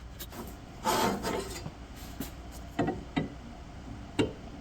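Hands working on the drill press's motor and pulley mounting: a short scraping rub about a second in, then three light knocks.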